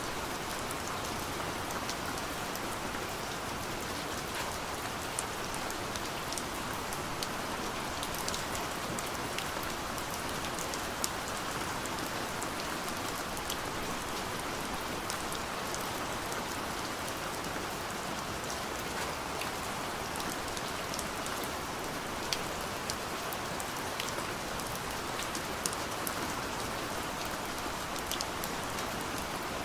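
Steady soft rain falling on a window pane: an even hiss with scattered individual drop ticks against the glass.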